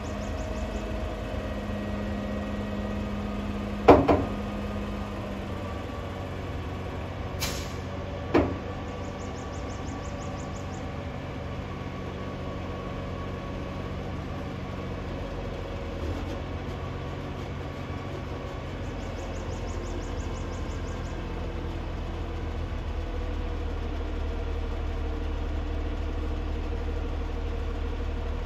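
Semi truck's diesel engine running steadily under load while the hydraulic hoist raises an aluminum end-dump trailer body. A sharp bang about four seconds in is the loudest sound, with a smaller one about eight seconds in, and the engine grows a little louder near the end.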